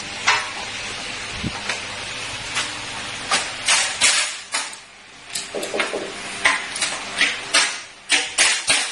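Irregular sharp taps and knocks, a dozen or more, coming faster near the end, as corner clips are tapped into a window frame's corners with a hand tool.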